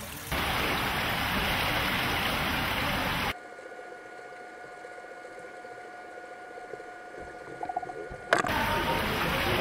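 Swimming-pool water trickling and sloshing. After about three seconds it cuts to a much quieter stretch with a faint steady hum, and the water sound returns near the end.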